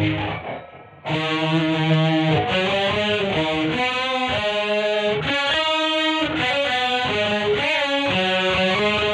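Greco EG-550 electric guitar played through a Peavey Vypyr VIP 2 modelling amp with a distorted tone. The previous notes fade out; then, about a second in, a melodic line of single notes begins, with a few bent notes.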